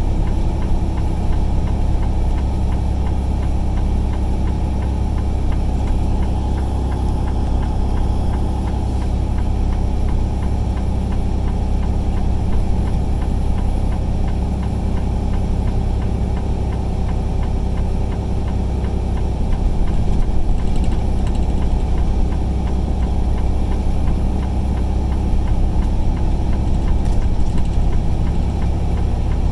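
Steady engine and road noise heard from inside a vehicle's cab while driving on a highway: a constant heavy low rumble with little change.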